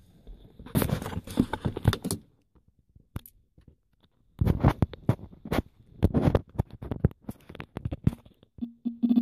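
Handling noise on a phone's own microphone as the phone is unclipped from its dashboard mount and held: irregular clicks, scrapes and rubbing in two bursts, the longer one in the second half. A brief low hum just before the end.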